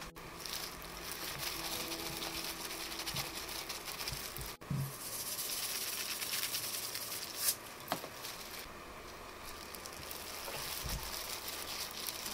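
Wet rustling and squelching of red-pepper-seasoned scallions being handled and packed by gloved hands, with two light taps about two-thirds of the way through. Soft background music underneath.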